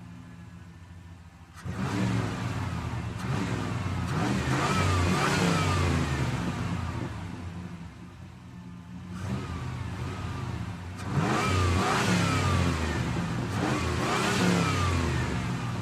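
Pickup truck engine idling, then revved hard about a second and a half in. Its pitch climbs and drops several times, eases off briefly midway, and is revved up again in a second long spell.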